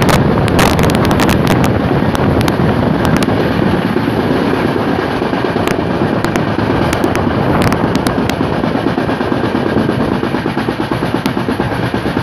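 Express passenger train running at high speed, heard from an open coach door: steady wheel-and-rail rumble with wind, sharp clicks and clatter as the wheels run over the track, and a quick regular clatter near the end.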